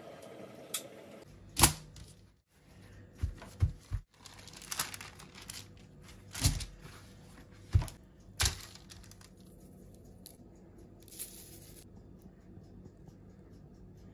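Kitchen handling noises: a series of short, sharp tearing and crinkling rasps, about seven in the first nine seconds, the loudest near the start and middle, then only faint handling sounds.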